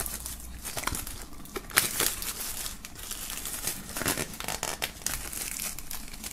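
Plastic shrink-wrap on a CD being slit with a small pocket knife and pulled off by hand, crinkling and crackling irregularly with sharp little clicks.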